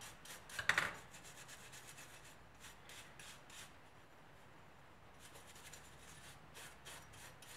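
Faint rubbing and scratching as a scooter starter clutch part is cleaned by hand, in short irregular groups of strokes, after a brief louder handling sound just under a second in.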